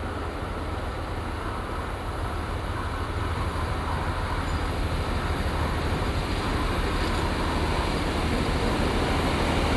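InterCity 125 HST (Class 43) power car's Paxman Valenta diesel engine running: a steady low drone under a broad rush of train noise that grows steadily louder.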